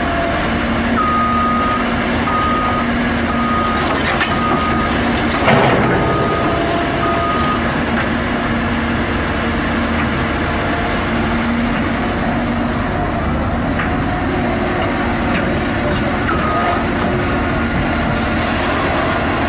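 Heavy vehicle's engine running steadily while its reversing alarm beeps about once a second for several seconds, stops, and gives one more beep near the end. A short, loud noise cuts through about five and a half seconds in.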